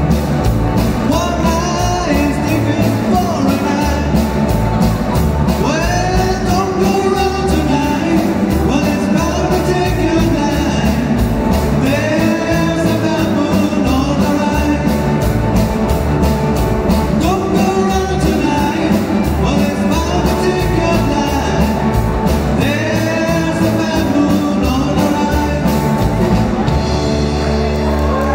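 Live rock band playing: electric guitars, bass guitar and a drum kit keeping a steady cymbal beat, with a singer's voice over it.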